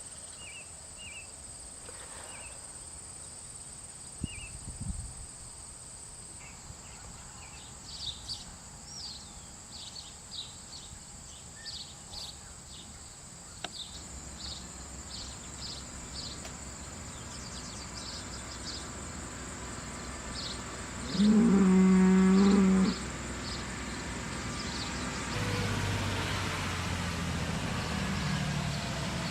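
One long cow moo, loud and pitched, about three quarters of the way through, over a steady high whine and scattered short high chirps. A low engine hum comes in near the end.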